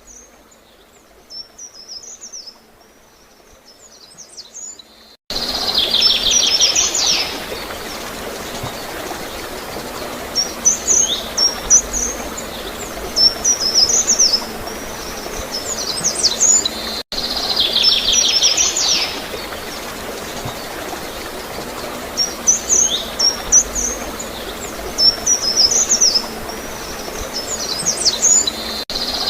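Songbirds chirping in short, high phrases every few seconds over steady gurgling flowing water. The birds are quieter and alone at first, and the water comes in suddenly about five seconds in.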